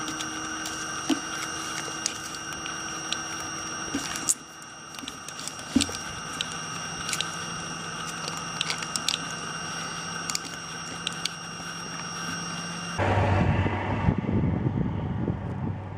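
A steady high whine and hum with scattered small clicks. About thirteen seconds in, it switches abruptly to the louder, low, rough running of the Audi A4's 2.5 TDI V6 diesel engine.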